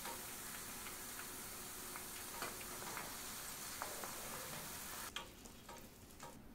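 Diced onion sizzling in hot oil in a nonstick pan, with a few light clicks of a wooden spatula and a wire skimmer against the pan. The sizzle drops away sharply about five seconds in.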